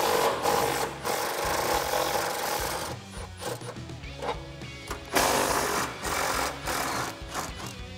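Milwaukee M18 cordless impact wrench run in two bursts, about three seconds and then about two seconds, backing out the 15 mm bolt at the top of a rear sway bar end link, with background music under it.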